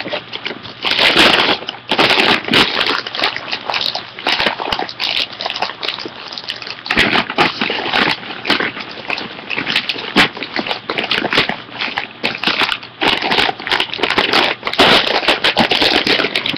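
Close, dense crackling and rustling from squishy toys and their packaging being handled, with many sharp irregular crinkles throughout.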